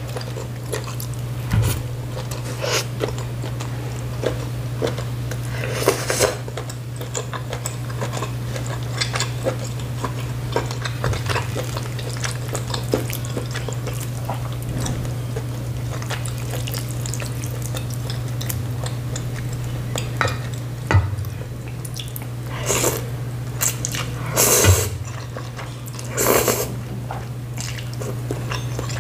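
Slurping noodles from spicy soup and chewing, with small clicks of chopsticks against a steel pot. The loudest slurps come about six seconds in and several times in the last seven seconds. A steady low hum runs underneath.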